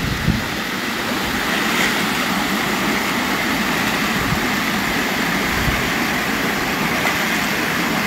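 Steady rush of river water pouring over a small weir, with the splashing of a person wading through the shallows.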